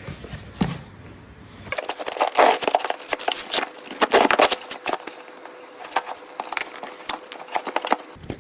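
Tripod packaging being opened by hand, with a quick run of irregular crackling, crinkling and rustling that starts about two seconds in.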